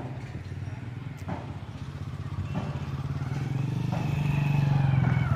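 An engine running with a fast, even throb, growing louder toward the end.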